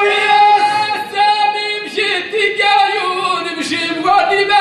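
A man's solo voice chanting Amazigh poetry into a microphone, unaccompanied, in long held notes that slide between pitches.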